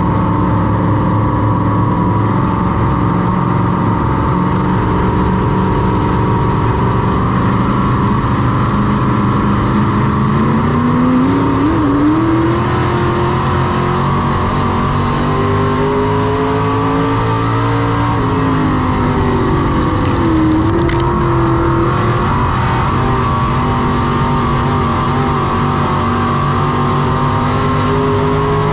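Semi late model race car's V8 engine running hard and without a break, its pitch climbing and falling as the car accelerates and backs off.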